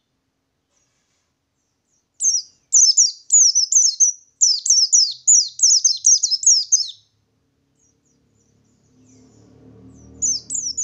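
White-eye (pleci) singing its rolling song: a fast run of about a dozen high, downward-slurred notes that starts about two seconds in and lasts about five seconds. A short burst of the same notes comes near the end, over a faint low rumble.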